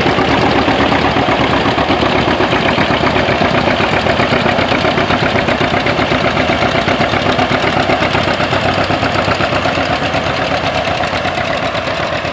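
Several antique tractor engines pulling plows under load, led by a John Deere two-cylinder with a steady, rapid pulsing exhaust beat. The sound eases off a little near the end.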